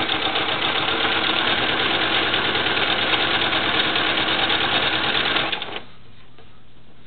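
Sewing machine stitching steadily at speed, sewing a zipper seam with the zipper foot, then stopping about five and a half seconds in, leaving only a faint low hum.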